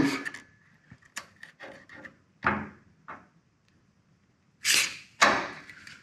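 Short hisses of a WD-40 Specialist white lithium grease aerosol sprayed through its straw onto the garage door's hinge pins and rollers. There is one brief spray about two and a half seconds in and two longer sprays near the end, with a few light clicks of the can being handled before them.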